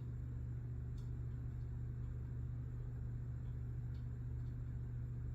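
Steady low hum of room tone, with two faint light clicks, one about a second in and one near the end.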